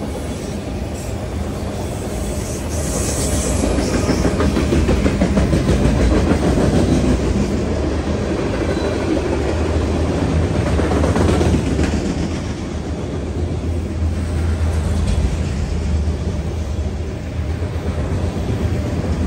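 Freight train of enclosed autorack cars rolling past at trackside: a steady rumble of steel wheels on rail with clickety-clack clatter. It grows louder about four seconds in.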